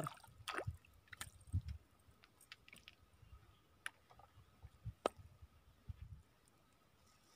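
Faint, scattered clicks and taps from fishing tackle being handled while a hooked tilapia is landed, over a low rumble of handling on the microphone that fades out about six seconds in.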